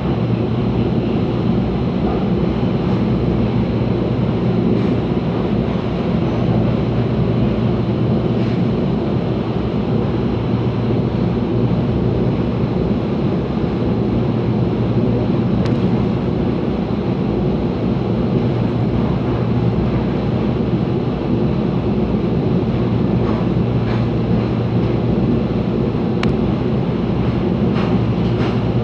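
Steady rumble of a CPTM electric commuter train running at speed, heard from inside the passenger car, with a few faint clicks from the wheels on the track.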